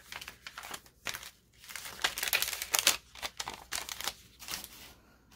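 Paper and card rustling and crinkling as hands slide a paper tag wound with baker's twine into a paper envelope. The irregular rustles are loudest about two to three seconds in.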